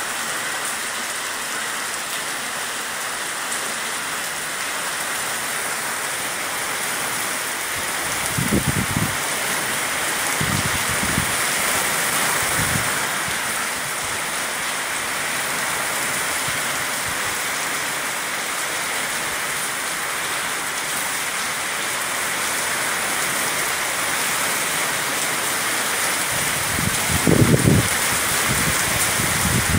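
Steady rain falling, a dense, even hiss. A few brief low thumps rise above it, about nine to thirteen seconds in and again near the end.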